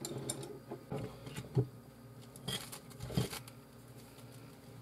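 Chopsticks clicking and tapping against a ceramic plate while picking up a breaded, air-fried mackerel fillet: a handful of short, scattered clicks, the loudest about a second and a half in and again just after three seconds.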